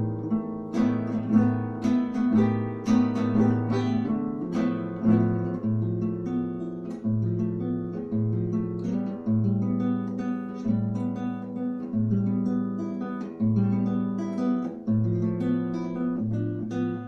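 Acoustic guitar playing an instrumental passage, chords plucked and strummed over a low bass note that comes back about once a second.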